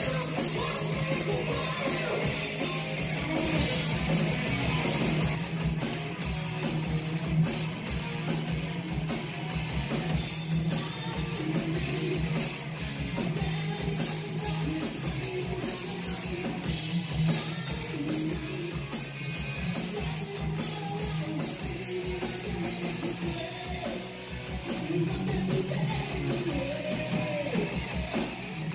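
Rock band playing a heavy-metal style song with distorted electric guitar, bass guitar and a drum kit with steady cymbal strokes, under a woman's sung lead vocal.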